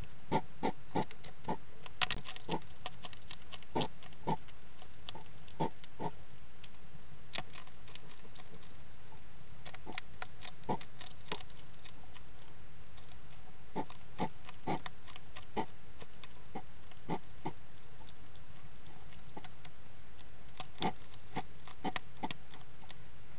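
A hedgehog crunching dry food in irregular clusters of short, crisp crunches with pauses between them. The crunches sit over a steady hiss from the CCTV microphone.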